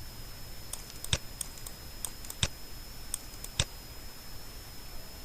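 Clicks of a computer mouse and keyboard: three sharp clicks a little over a second apart, with fainter light ticks between them, over a faint steady high whine.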